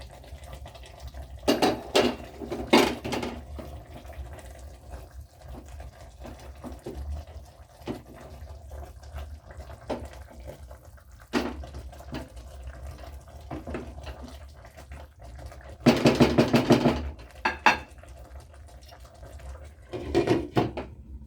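A pot of fish stew on the boil: liquid bubbling and sloshing, with several short clattering bursts of the pot and its lid, the longest about sixteen seconds in.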